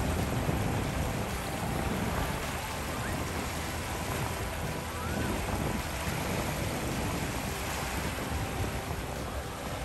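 Small sea waves washing at the shore with wind buffeting the microphone, an even, unbroken rush of noise with a low rumble.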